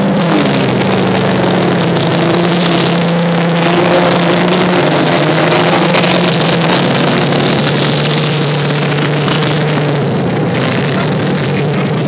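Engines of several old saloon cars racing together on a loose dirt field track: a loud, steady drone of overlapping engine notes.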